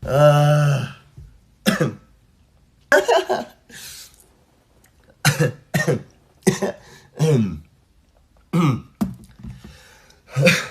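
A young man coughing over and over: about a dozen short coughs, single and in pairs, with pauses between them. The first is a longer, voiced hack of about a second, and several later coughs are voiced and drop in pitch.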